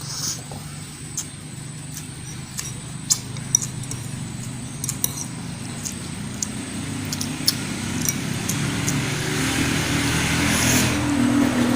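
Scattered small clicks and smacks of eating by hand, over the low hum of a motor vehicle engine that grows steadily louder over the last few seconds as it approaches.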